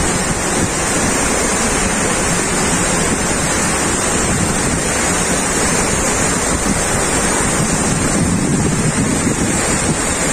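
Steady, unbroken rushing of a waterfall's falling water.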